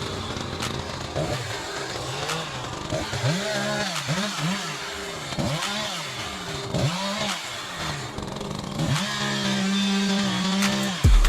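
Two-stroke chainsaw engine revved up and down over and over, about twice a second, then held at high revs for the last couple of seconds.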